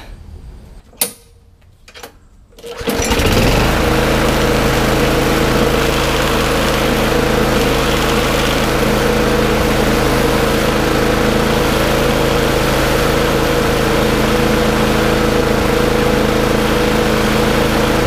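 The Briggs & Stratton engine of a Craftsman 21-inch push mower catches about three seconds in and runs steadily at a constant speed. It now starts and runs after a no-start that was traced to a gas- and oil-soaked air filter.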